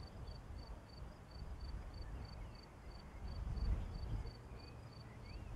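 Distant thunder rumbling low, swelling briefly about halfway through, under a steady high insect chirp repeating about three times a second.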